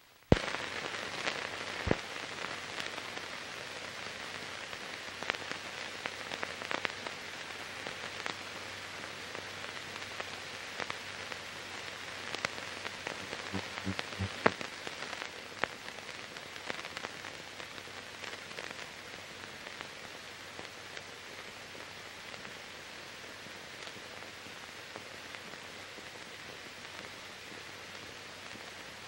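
Steady hiss with scattered clicks and pops, busiest in the first half and easing a little later: noise of a silent archival film transfer, with no sound from the scene itself.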